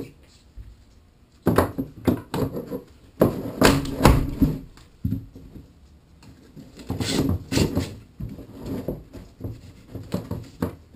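PVC pipe and fittings being knocked together with a rubber mallet on a wooden workbench: irregular clusters of dull thumps and plastic clatter, with short pauses between.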